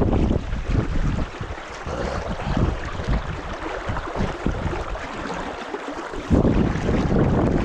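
Wind buffeting the microphone in gusts over the rush of river water. The rumble drops back after about a second and comes back strongly a little after six seconds.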